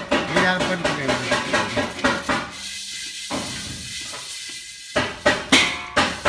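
Smoked tea leaves being pan-fried by hand in a large metal pan, the hand sweeping and tossing them against the pan in rhythmic strokes about three a second. The strokes pause for a couple of seconds midway, then pick up again.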